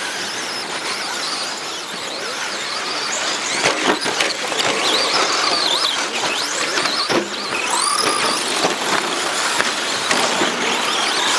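Several radio-controlled 2WD short course trucks racing, their motors whining high and rising and falling in pitch as they speed up and slow down, over a constant scrabble of tyres on the track. A few sharp knocks come through about four seconds in and again around seven seconds.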